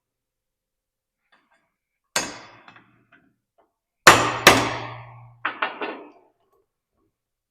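Hammer blows on metal that ring briefly: one about two seconds in, two heavy blows about four seconds in, then three quick lighter taps.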